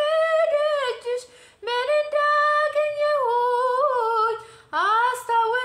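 A woman singing an Amharic Ethiopian Orthodox hymn (mezmur) unaccompanied, holding long notes with ornamented turns in pitch, with two short breaks between phrases.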